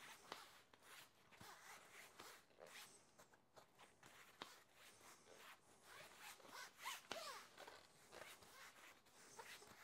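Faint scraping, rustling and small irregular clicks of hands working on a bicycle wheel, with a short squeak about seven seconds in.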